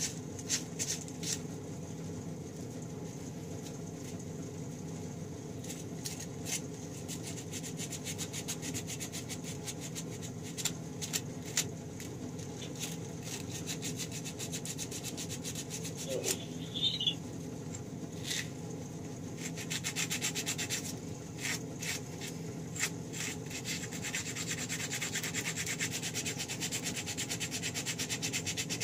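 Hand rubbing and scraping on a small mini bike part held in the lap: uneven strokes at first, then a fast even run of strokes over the last several seconds, over a steady low hum.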